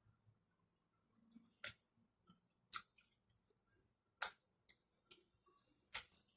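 Scattered small clicks and taps, fairly quiet, with four sharper clicks standing out about a second or more apart.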